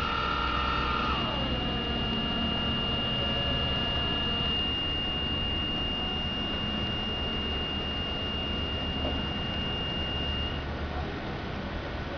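Caterpillar forklift running with a steady low engine rumble. About a second in, a whine glides down in pitch, and a thin high steady tone runs on until it cuts off near the end.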